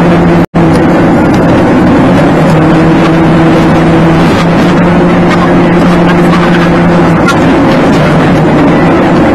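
Car engine hum and road noise heard from inside the cabin through a dashboard camera, sped up to double speed, so the pitch is raised. It runs steadily, with the hum shifting pitch slightly now and then. About half a second in, the sound cuts out for an instant.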